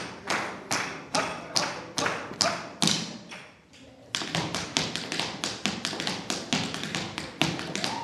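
Tap shoes striking a wooden dance floor, sharp taps in a steady beat of about two a second, then a brief pause about three seconds in, followed by a faster, busier tap rhythm.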